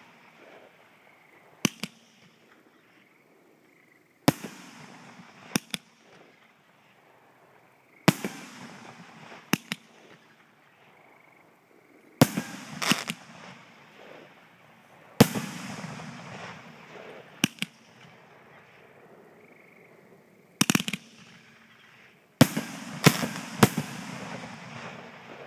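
Aerial fireworks firing shots one after another, a sharp bang every two to four seconds. Each bang is followed by a fading rush of noise as the stars burst and fall, and three bangs come in quick succession near the end.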